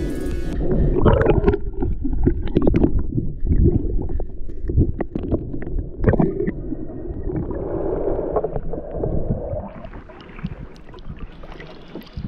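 Muffled underwater knocks and scrapes as a three-tined hand rake digs into sandy seabed for bar clams, with water gurgling around the microphone. About ten seconds in the microphone comes up out of the water and the sloshing of the shallows becomes brighter.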